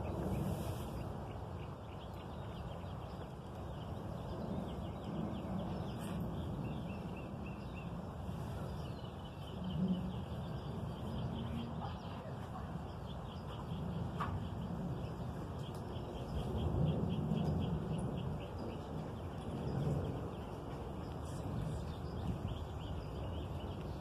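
Small birds chirping in short, quick trills over a steady low background rumble.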